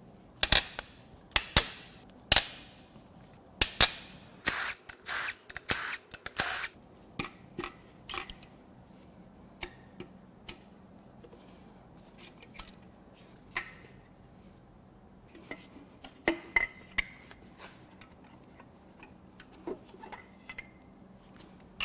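Socket wrench and hand tools working the connecting-rod cap bolts of a Toyota 1GR-FE V6 bottom end: sharp metallic clicks and clanks with short ringing. They come in quick clusters through the first seven seconds, then as scattered taps.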